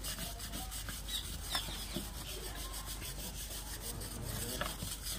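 Mason's steel trowel scraping and rubbing against brickwork.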